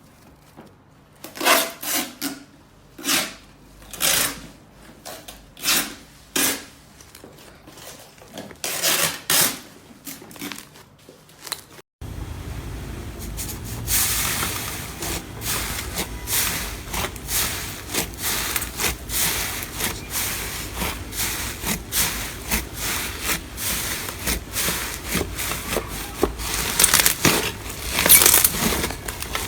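Slime being worked by hand. For the first dozen seconds there are separate squelches and pops, then after a cut a dense, continuous crackling as the slime is pressed and squeezed.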